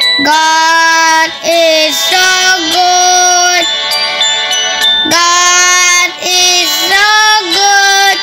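A song sung with long held notes, each note sustained and then moving to the next, in a clear high voice.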